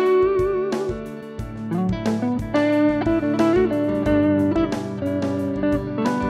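Electric guitar, a Strat copy run through a Zoom G1Four amp simulator with the MiMiDi delay pedal still on, playing a lead of sustained single notes with bends and vibrato. A drum-machine beat keeps steady time underneath.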